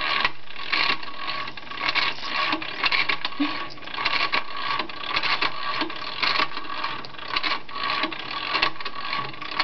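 Homemade art machine built from a broken bathroom scale running: a steady motor hum under a continuous, irregular rattle of clicks and knocks.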